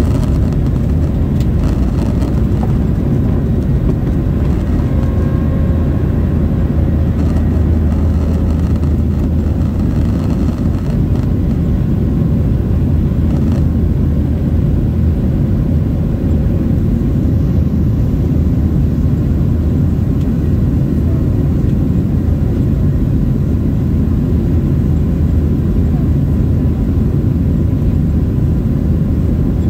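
Boeing 737 jet engines at takeoff power, heard inside the cabin from a seat over the wing: a loud, steady low rumble as the airliner lifts off and climbs away.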